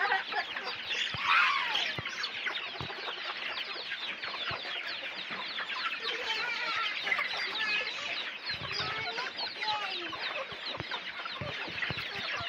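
A flock of free-range chickens and young chicks clucking and peeping all at once in a dense, continuous chatter while they feed on scattered grain.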